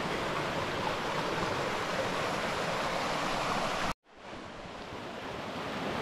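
Shallow rainforest stream rushing over rocks and small cascades, a steady wash of water noise. It cuts out abruptly about four seconds in and fades back up.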